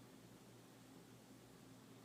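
Near silence in the pause between a sleeping woman's snores: only a faint steady hiss with a low hum.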